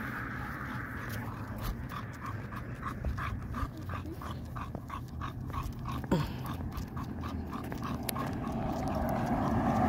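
A dog panting rhythmically, about three breaths a second, stopping shortly before the end, with one short rising whine about six seconds in.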